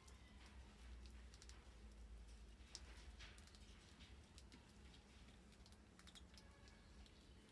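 Faint, scattered clicks and scratches of mice scrabbling and feeding on a plastic water-bottle trap, over a low steady hum.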